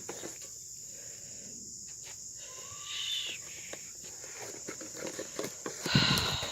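Crickets or other insects chirping steadily in a high, even drone. A short pitched call comes about three seconds in, and there is rustling with low thumps near the end.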